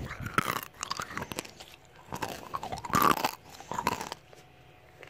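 Mouthful of Smarties candies being crunched and chewed close to the microphone: irregular bursts of crisp crunches that stop about four seconds in.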